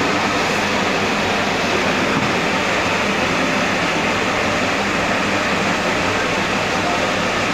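Puffed rice (muri) making machine running with a steady, even mechanical noise.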